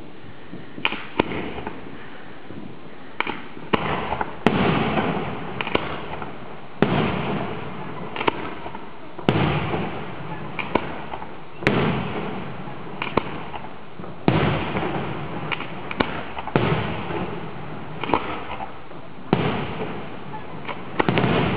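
Aerial firework shells bursting one after another: sharp bangs every second or two, each trailing off in a long echo.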